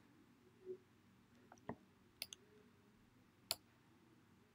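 A few sharp computer mouse clicks against near silence, spaced a second or so apart, as the map is dragged and zoomed.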